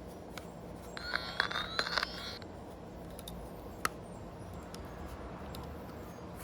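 Electrical tester probe giving short rising electronic chirps for about a second and a half, mixed with sharp clicks, as it is worked along the wiring harness plugs; a single sharp click follows later.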